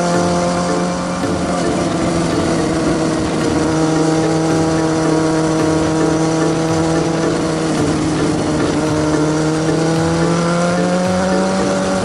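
Sport motorcycle engine running at steady cruising revs over wind and road noise; the revs ease off slightly about eight seconds in, then climb again.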